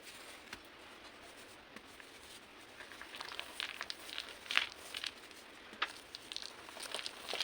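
Gym chalk being crushed, crunching and crackling in quick, irregular sharp cracks that start about three seconds in and grow denser, with one loudest crack about halfway through.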